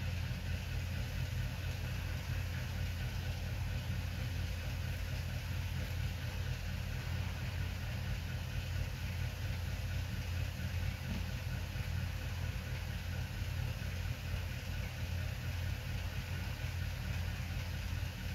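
Steady low hum with a faint hiss, unchanging throughout, with no distinct clicks or knocks.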